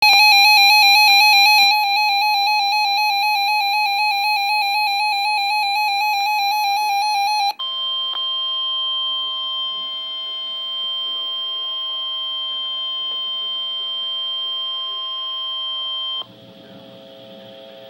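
Electronic Emergency Alert System alert tones. A loud warbling tone plays for about seven and a half seconds, then a steady tone for about nine seconds. Near the end it drops suddenly to a quieter, low humming tone.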